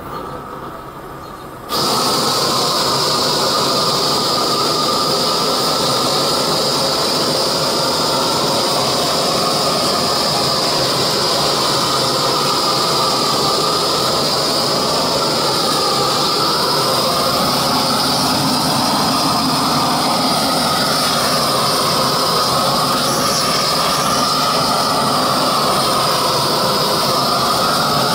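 Handheld propane torch burning with a loud, steady rushing hiss that jumps suddenly louder about two seconds in, as its flame sears ribs on a grill grate.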